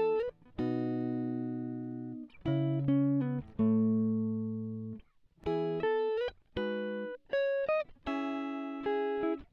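Background music: a guitar playing slow chords and single notes, each left to ring and fade, with a few short slides up in pitch.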